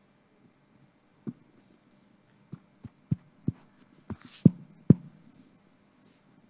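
A series of dull thumps, about eight, irregularly spaced: one a little over a second in, then a cluster of quicker ones, the loudest two near the end, over a faint steady hum.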